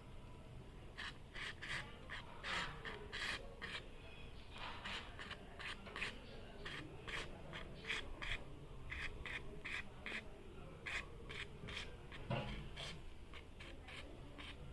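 WD-40 aerosol can sprayed onto a motorcycle's front disc brake caliper in many short, faint hissing bursts, about three a second.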